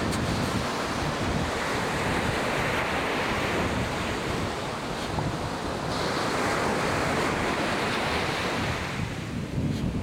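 Ocean surf breaking and washing in, swelling twice, with wind buffeting the microphone as a steady low rumble.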